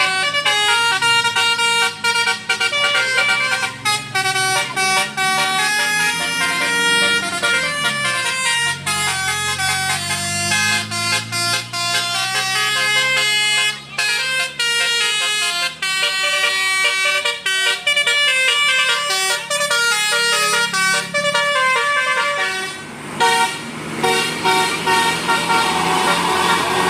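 Telolet Basuri musical bus horn, a multi-tone air horn, playing a fast melody of short stepped notes, while a vehicle engine rises and falls in pitch underneath during the first half.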